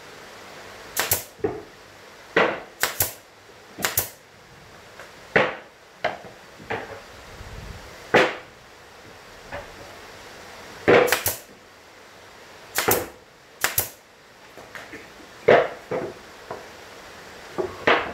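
Pneumatic brad nailer firing F20/F30 brad nails into plywood panels: sharp clacks, often two in quick succession, about ten shots in all, between softer knocks of the wooden panels being handled.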